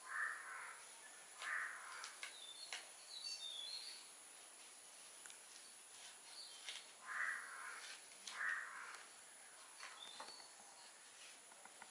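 A crow cawing twice, then twice more about seven seconds in, with small birds chirping at intervals. Faint clicks of a knife scraping bark off a cinnamon stick come through between the calls.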